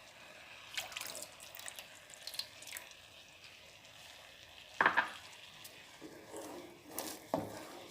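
Quiet kitchen handling sounds: scattered light clicks and knocks of utensils. The loudest comes about five seconds in, with two more near the end.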